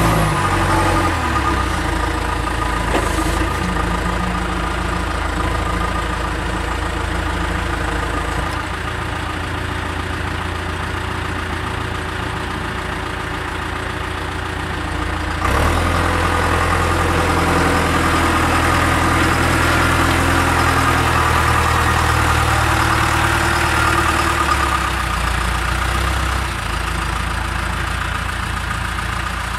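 Backhoe loader's diesel engine running steadily, getting louder about halfway through as it is worked harder, then easing back near the end.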